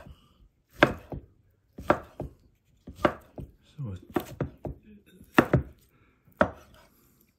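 Kitchen knife slicing through cooked char siu pork and knocking on the cutting board, about six strokes roughly a second apart, each with a sharp tap and a quick second knock.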